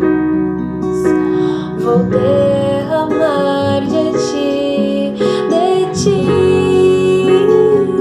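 Slow worship song: a woman singing a held, gently moving melody over sustained instrumental accompaniment.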